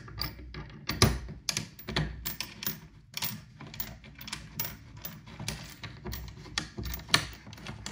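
Irregular small clicks and knocks as a hand works a screw-type height-adjusting wheel at the end of a wooden rod resting on a perforated rail, with the loudest knocks about a second in and near the end.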